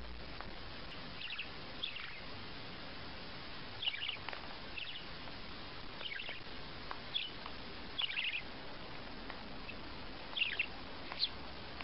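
Budgerigar giving short, high chirps, about ten of them spread irregularly, over a steady background hiss.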